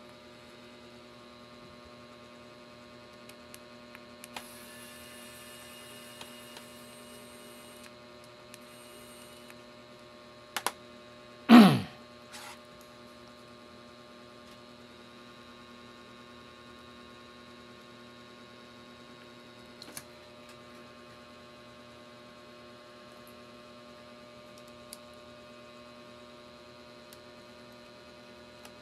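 Steady electrical mains hum, with a few faint small clicks of laptop disassembly and screw work. About eleven seconds in there is one brief loud swoosh that drops quickly in pitch.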